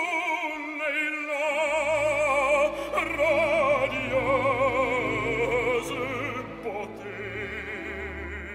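Operatic baritone singing long notes with wide vibrato over an orchestra. Low strings come in underneath about a second and a half in, and the voice eases off near the end.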